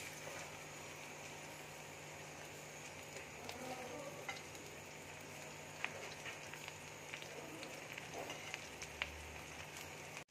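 Spice- and cornflour-coated okra frying in hot oil in a kadai just after it has been dropped in: a steady quiet sizzle with scattered small pops and crackles.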